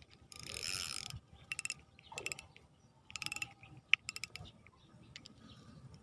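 Spinning reel being cranked in short spurts: a longer whir of the reel's gears near the start, then several brief bursts of rapid clicking as the handle is turned again.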